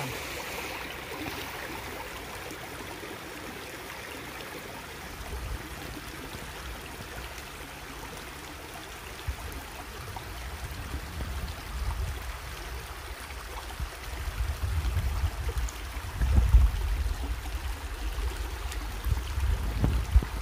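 Shallow, fast-flowing stream rushing over stones in a steady hiss. From about five seconds in, irregular low rumbling buffets on the microphone come and go, strongest near the end.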